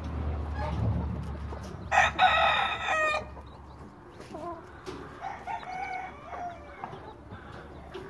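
A chicken gives one loud, short crow about two seconds in, lasting about a second, then several softer clucks.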